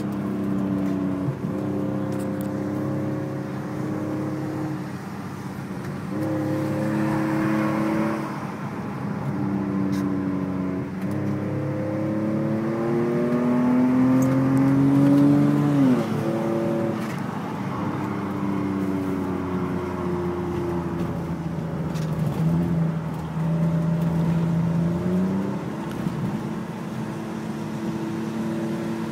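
BMW 523i E39's inline-six engine running through a handmade aftermarket exhaust, its note rising and falling several times. The longest climb comes a little past the middle and ends in a sharp drop.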